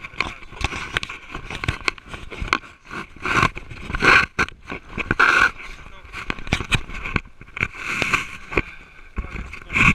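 Lake water splashing and sloshing around a hand-held action camera as a swimmer strokes through it, with many short knocks and splashes on the microphone.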